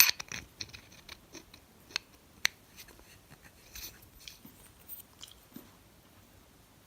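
Scattered light clicks and taps of quick-release chisel handle parts being handled, with a cluster of clicks at the start and a sharper single click about two and a half seconds in.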